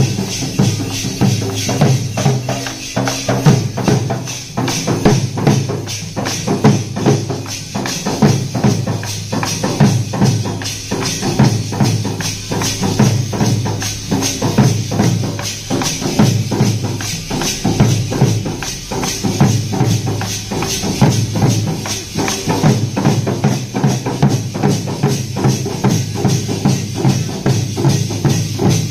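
Dollu Kunitha troupe beating large dollu barrel drums with sticks: loud, dense, steady rhythmic drumming by several drummers together.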